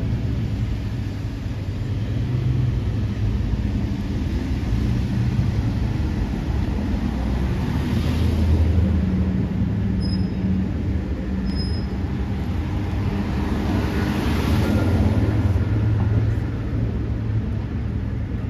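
Steady low engine rumble and road-traffic noise, with vehicles swelling past about 8 and 14 seconds in.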